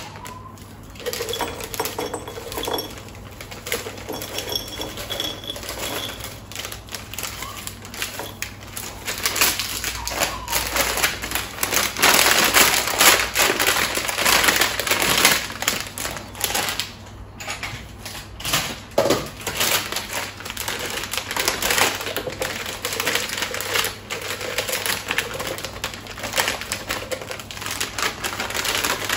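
Plastic lolly packets crinkling and rustling as they are handled and torn open, with sweets tipped out of them into glass jars; a dense crackling, busiest in the middle.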